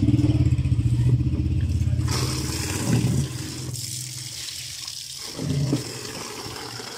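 Water running from a tap into a plastic gallon jug, a steady hiss that comes in about two seconds in. For the first three seconds a loud low rumble is the loudest thing.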